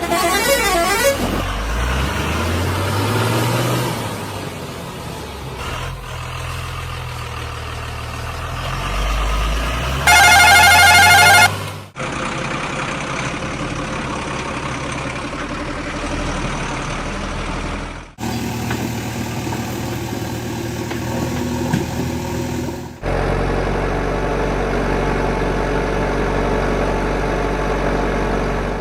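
Heavy diesel engines of a backhoe loader and tipper trucks at work, revving up and down in the first few seconds and then running steadily. A loud warbling horn blast lasts about a second and a half around ten seconds in.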